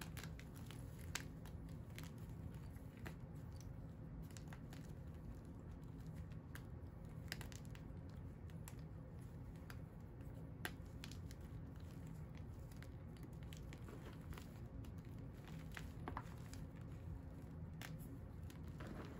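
Fingers crumbling pieces of dyed, dried powder blocks: soft crunching with scattered sharp little cracks as chunks break, over a steady low hum.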